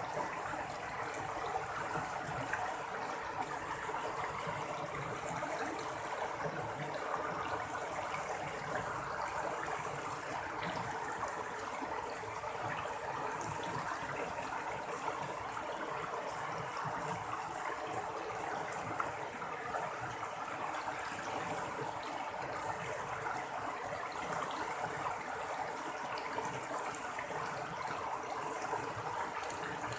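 Running water babbling and splashing steadily, a continuous trickling stream.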